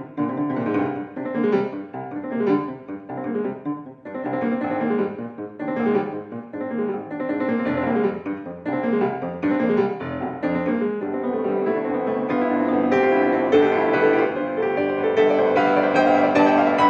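Solo grand piano playing a piece in quick, separate notes. Past the halfway point the playing thickens into fuller, held chords and grows a little louder.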